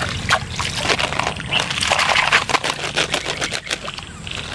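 Small plastic toy animals knocking and rattling in a plastic colander as it is swished through water, with splashing and water dripping from it.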